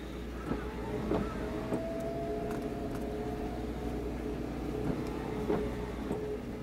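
Steady mechanical drone of engines running on moored purse-seine fishing boats, a low rumble with a steady humming tone, with a few short sharp sounds over it.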